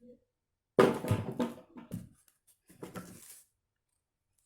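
Handling noise from a vacuum cleaner pipe being unpacked: a sudden loud clatter and rustle about a second in, and a smaller one around three seconds.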